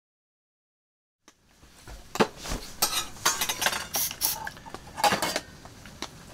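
Tableware being handled and cleared: cutlery and metal dishes clinking and knocking against each other and the table. It starts about a second in, in irregular clatters.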